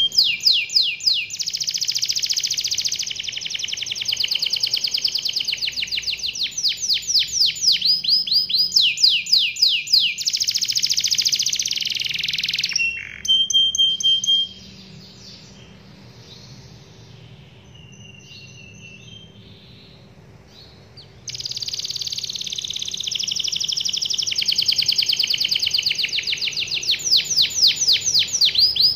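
Domestic canary singing long rolling trills of rapidly repeated high notes. About halfway through it breaks off for several seconds with only a few faint notes, then takes up the rolling song again.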